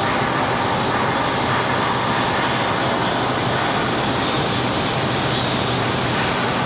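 Steady industrial background din of a large shipbuilding hall: an even rushing noise with a low hum and a faint high steady tone, no single event standing out.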